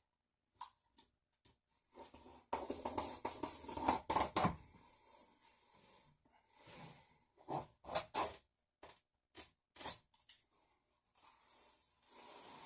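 Scattered clicks and rustling from hands working materials, with a longer rough scratching stretch between about two and four and a half seconds in.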